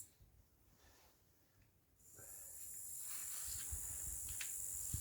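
About two seconds of near silence, then a grasshopper's steady high-pitched chirring comes back in, with a few faint taps.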